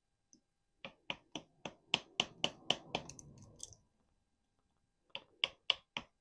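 A hand cutting tool clicking shut about four times a second as it bites into hard privet deadwood to break it up, with faint crackling of the wood under the later cuts; after a pause, a few more quick cuts near the end.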